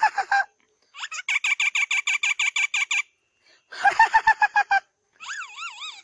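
Common myna calling: a rapid run of chattering notes at about eight a second for two seconds, then a short warbled call and a wavering, siren-like whistle near the end.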